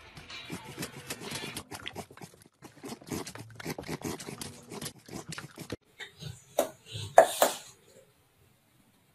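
A black puppy chewing crunchy food, a dense run of quick crisp crunches. After a cut, a small puppy gives a few short high yaps near the end.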